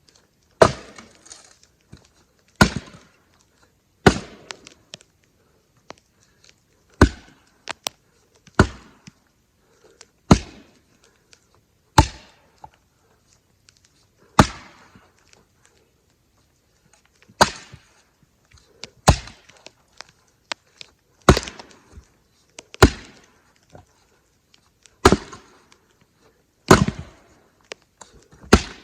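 An axe chopping firewood: about fifteen sharp, separate strikes, mostly one to two seconds apart, with a couple of longer pauses between swings.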